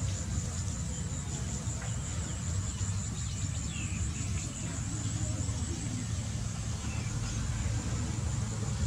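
Outdoor ambience: a steady high-pitched insect trill over a continuous low rumble.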